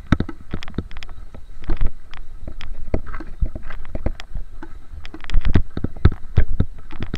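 A rapid, irregular series of sharp knocks and clicks over a low rumble, with no steady rhythm.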